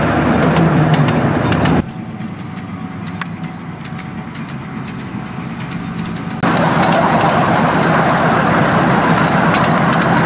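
Miniature railway locomotive's engine running steadily while the train rides along the track, with light clicks over the top. The sound drops abruptly to a quieter, more distant level about two seconds in and comes back loud at about six and a half seconds.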